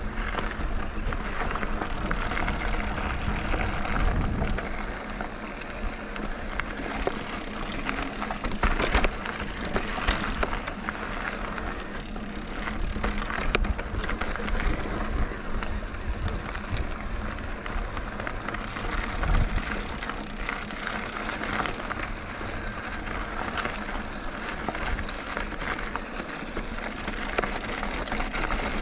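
Mountain bike riding a rocky dirt trail: a steady rushing noise of tyres and wind with frequent knocks and rattles as the bike goes over bumps.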